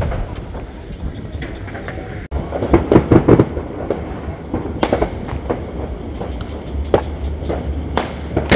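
Fireworks going off: a quick run of bangs about three seconds in, then single bangs every second or two.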